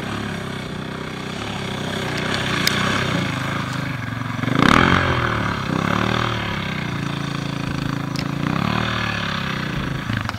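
Loaded adventure motorcycle engine pulling up a sandy dune track. The revs surge and are loudest about halfway through, then hold fairly steady as the bike nears the crest.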